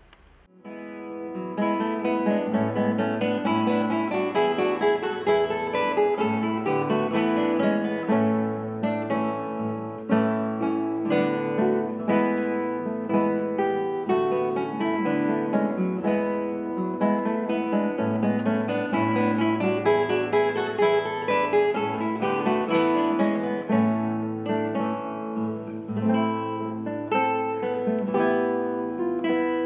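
Two classical guitars playing a Renaissance lute piece together, plucked melody over a bass line. They come in about half a second in, after a brief hush.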